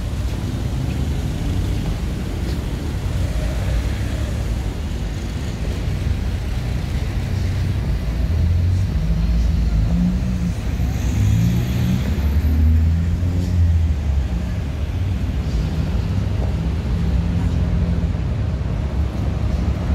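Street traffic: cars and vans passing with a steady low engine rumble, which grows louder around the middle as a vehicle goes close by.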